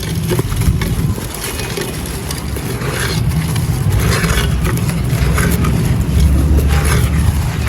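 Crumbly dry clay being crushed: gritty crunching in irregular bursts over a steady low rumble.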